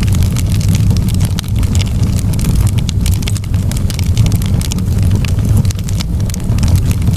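Wood fire burning in a fireplace: frequent sharp crackles and pops over a steady low rumble.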